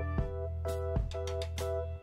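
Background music: sustained chords over a steady bass note, with drum hits through it.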